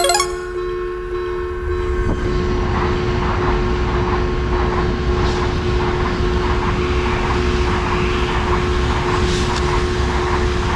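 Japanese railway level crossing alarm ringing about twice a second as a train passes through the crossing. The low rumble of the train sets in about two seconds in and stays under the alarm.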